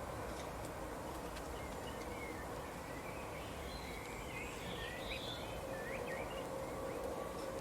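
Small birds chirping in short, quick rising and falling calls, most of them in a busy stretch past the middle, over a steady background hum.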